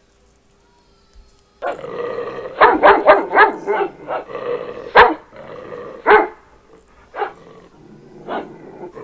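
Dog growling and barking sound effect, starting about a second and a half in: a quick run of four or five barks, then single barks about a second apart.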